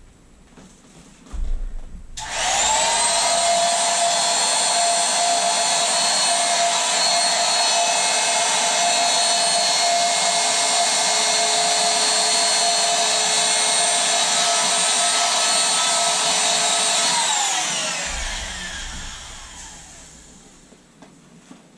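Electric air pump blowing air into an inflatable: it switches on about two seconds in and quickly spins up to a steady whirring whine. Near the end it is switched off and winds down, its pitch falling as it fades out over a few seconds.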